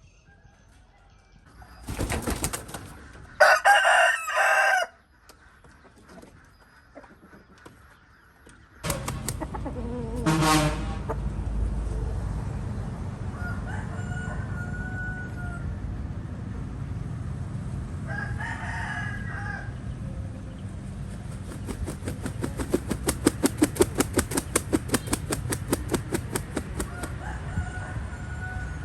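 Rooster crowing: one loud crow about four seconds in, another about ten seconds in, and fainter crows later. A sharp burst comes just before the first crow, and a fast regular run of pulses lasts several seconds near the end, over a steady background hiss that starts about nine seconds in.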